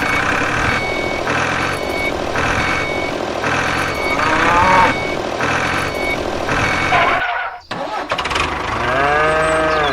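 Vehicle warning beeper sounding in a steady rhythm, about once every 0.7 seconds, over engine noise. It cuts off about seven seconds in, and engine noise with a short voice-like call follows near the end.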